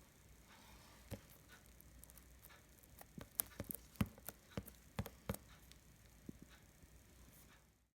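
Scattered light clicks and knocks, most of them between about three and five and a half seconds in, over a faint low hum. The sound cuts off just before the end.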